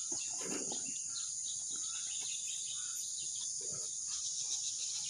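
Insects chirring in a steady, high-pitched drone, with no pause.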